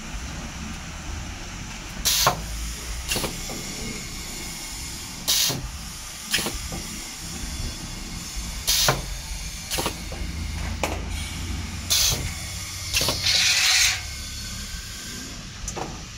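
Pneumatic mooncake forming press cycling: its air cylinder lets out short hissing blasts of air in pairs about a second apart, one pair every three seconds or so, with a longer hiss near the end, over a steady low hum.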